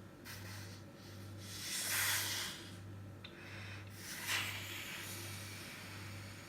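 Two puffs of breath blown through a straw to inflate a slime, a longer one about two seconds in and a shorter, sharper one about four seconds in.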